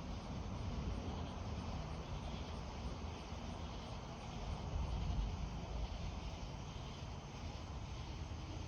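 Outdoor thunderstorm ambience: a steady low rumble with a hiss over it, swelling slightly about five seconds in.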